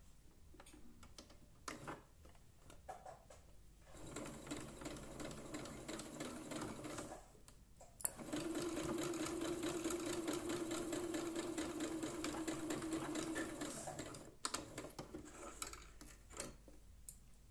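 Minerva computerized sewing machine running a straight stitch along the edge of a pleated nonwoven mask. There is a short run about four seconds in, a brief stop, then a longer, louder run of about six seconds. Scattered handling clicks come before and after the runs.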